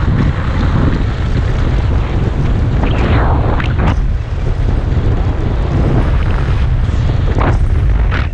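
Wind buffeting the microphone in a heavy, steady low rumble, as when moving fast outdoors. Short hissing sweeps come through about three seconds in and twice near the end.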